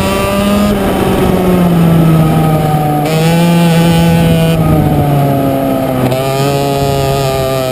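A 100cc racing kart's two-stroke single-cylinder engine at speed, heard from the driver's seat. It runs high and steady, sagging in pitch as the kart slows for a corner about six seconds in, then climbing again as it accelerates out.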